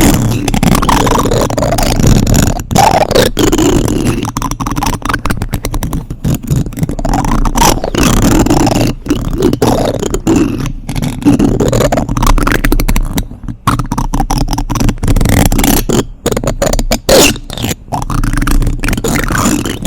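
Plastic spoons rubbed and scraped directly against a microphone, close and loud, with sweeping scrapes broken by sharp clicks and taps.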